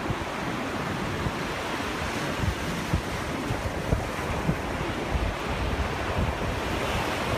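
Ocean surf breaking and washing up the beach in a steady hiss, with gusts of wind buffeting the microphone in low rumbles.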